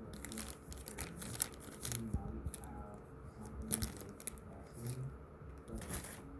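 Packaging being handled: irregular rustling and crinkling with scattered clicks and taps.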